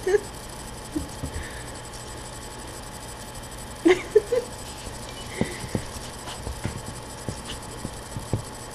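A woman's short laugh about four seconds in, followed by a few faint scattered taps and clicks over quiet room tone.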